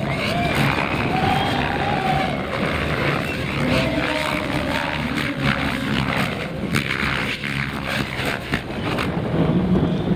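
Electric radio-controlled helicopters flying aerobatic manoeuvres: a continuous whirring rotor and motor sound whose pitch rises and falls as they manoeuvre.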